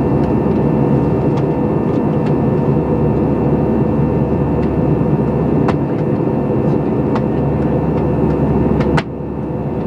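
Steady in-flight cabin noise of an airliner: engine and airflow noise with a constant hum, and a few faint clicks. About nine seconds in the sound drops suddenly and turns duller.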